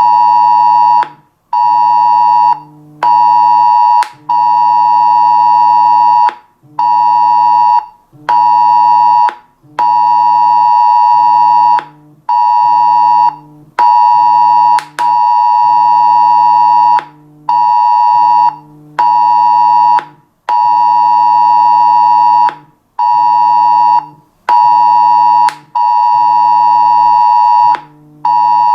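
Mobile phone emergency alert tone sounding for a test alarm: a loud, steady, high-pitched tone switching on and off, long and short tones alternating with short gaps.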